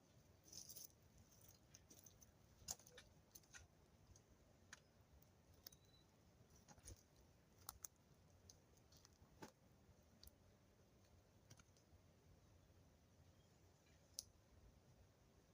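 Faint, irregular sharp clicks and small taps, a dozen or more scattered at uneven intervals over a quiet background hiss.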